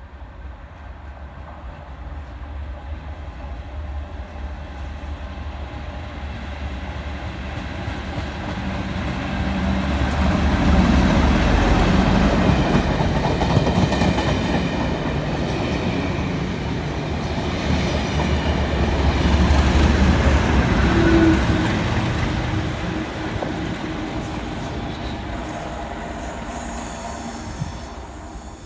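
A diesel test train with a Class 37 locomotive at each end passing close by: the English Electric V12 diesel of the leading locomotive swells to a loud peak as it passes, the coaches' wheels run by on the rails, and a second swell comes as the rear locomotive passes, then the sound fades away.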